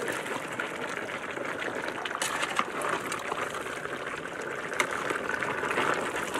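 Pot of pork stew bubbling as it simmers over a flame: a steady bubbling hiss with many small pops.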